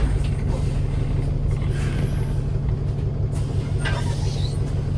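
ADL Enviro 400 MMC double-decker bus with a ZF automatic gearbox, running with a steady low engine drone, and a sharp click right at the start.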